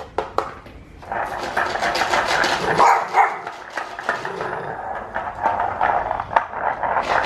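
Bulldog puppy vocalizing during play, an uneven run of short sounds from about a second in.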